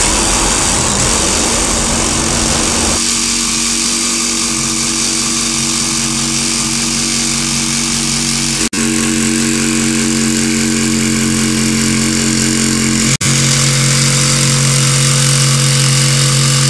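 DeWalt cordless jigsaw running steadily as it cuts a square hole through a rubber membrane roof and the wooden deck beneath. The motor and blade make a steady buzz that drops out for an instant twice.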